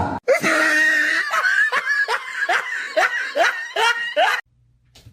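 A person laughing: a run of short, repeated laughs, each falling in pitch, about three a second, that stops shortly before the end.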